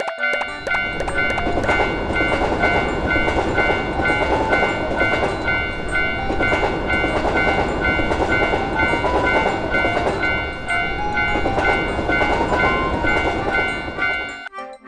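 Train rushing past a railroad crossing, a dense rumble and rattle, while the crossing's warning bell keeps ringing with its repeated clang. The train noise starts just after the beginning and cuts off shortly before the end.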